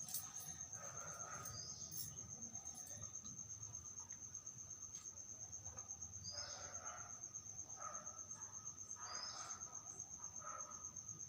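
An insect trilling: a steady, high-pitched, rapidly pulsing tone that runs on evenly, with a few faint soft rustles beneath it.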